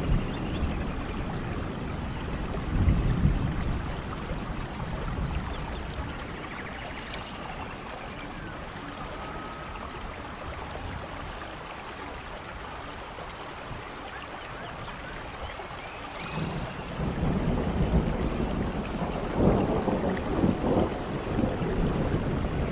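Steady rain with rolling thunder: a low rumble in the first few seconds, a quieter spell of rain alone in the middle, then thunder building again about two-thirds through, with sharper cracks near the end.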